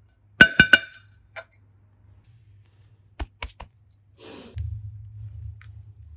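Three quick ringing clinks of small hard containers knocked together, then a few light clicks and a soft squelching as slime is handled.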